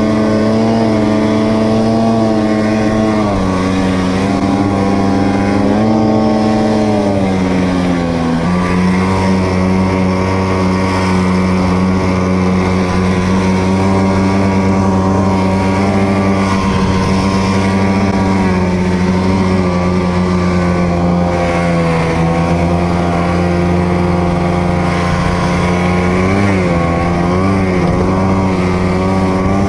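Two-stroke snowmobile engine running at steady riding revs under way. The pitch rises and dips a little in the first few seconds, settles slightly lower about eight seconds in, and wavers briefly near the end.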